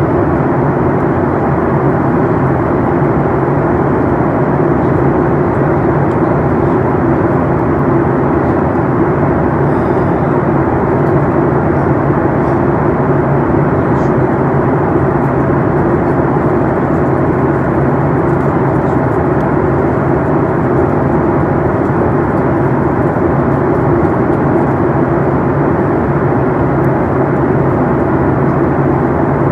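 Steady cabin noise inside a Boeing 737 MAX 8 in descent: its CFM LEAP-1B turbofans and the airflow past the fuselage make an even rush with a low hum under it.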